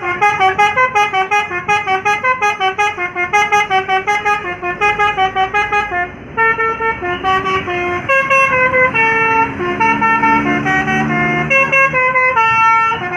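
Bus 'telolet' multi-tone air horn playing a melody: quick short notes for about six seconds, then slower, longer-held notes.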